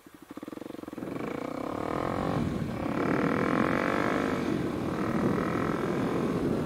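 Kawasaki KLX 300's single-cylinder four-stroke engine through a Delkevic carbon slip-on exhaust, going from a low, slow putt to pulling hard through the gears. The pitch climbs and the engine grows louder, with two brief dips at the upshifts.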